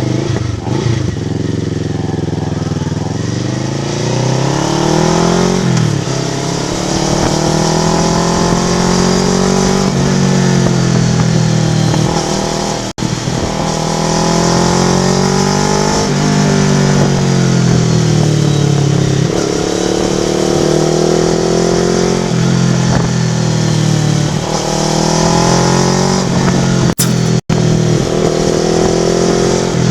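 Kawasaki Vulcan S parallel-twin engine through an IXIL aftermarket exhaust, its pitch rising and falling again and again as it is revved up and eased off. The sound cuts out very briefly twice.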